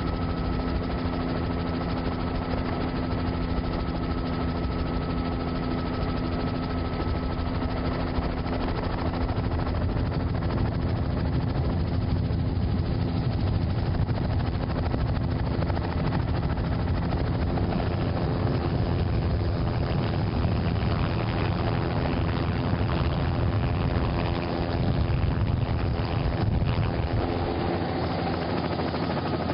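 Steady engine drone of the aircraft carrying the camera, heard from on board. A faint high whine sits over it and fades out about halfway through.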